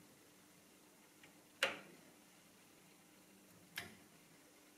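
Two sharp clicks about two seconds apart as keys are pressed on an ELKA 6521 electronic calculator, each with a short ringing decay, over a faint steady hum.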